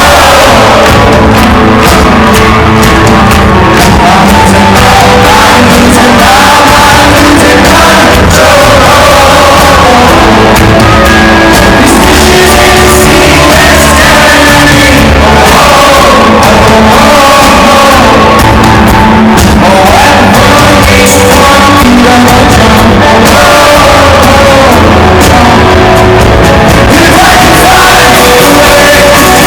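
Indie rock band playing a song, a male lead singer over the full band; loud throughout.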